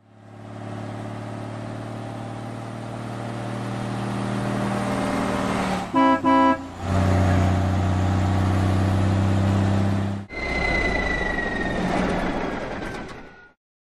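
Cartoon truck sound effects: a steady engine hum that builds up, two short horn toots about six seconds in, then the engine running louder. From about ten seconds the engine gives way to a noisier sound with a slowly falling whine.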